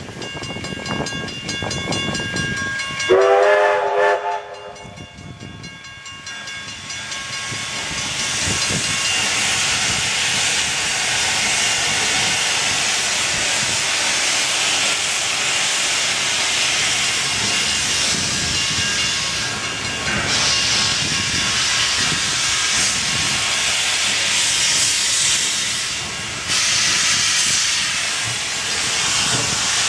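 NSWGR C32 class steam locomotive 3265 gives one short whistle blast about three seconds in. After that, a continuous steam hiss builds up and carries on, growing louder near the end.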